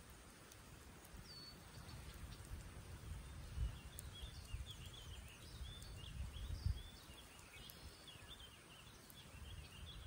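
Small birds chirping in a quick, busy run of short high notes through the second half, over a gusty low rumble and a few faint crackles from a wood campfire.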